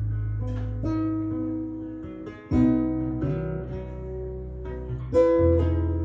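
Acoustic guitar music with a deep bass line, played back through floor-standing loudspeakers driven by the prototype Edelweiss-4 valve power amplifier under test. New plucked notes and chords come in about a second in, near the middle and again near the end, over a held bass.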